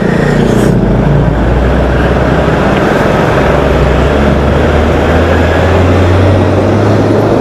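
Motorcycle riding in traffic: a steady low engine hum, rising slightly in pitch in the second half, under a loud rush of wind on the action camera's external microphone.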